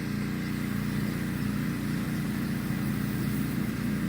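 Pressure washer's engine running steadily at a constant speed.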